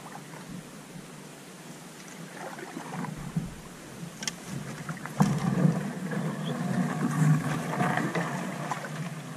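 A thin carbon canoe paddled through a shallow, rocky creek: quiet water and paddle sounds at first, then about five seconds in the hull starts rubbing and scraping along the rocky, weedy bottom, a louder, rough, continuous noise.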